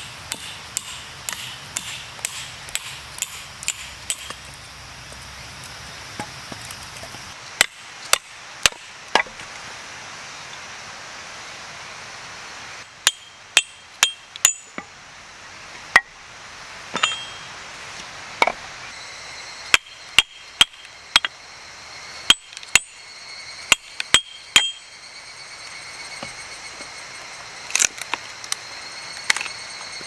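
Sharp metallic clinks and taps, metal striking metal with a short high ringing after each strike: a quick even run of light taps at first, then irregular groups of louder strikes.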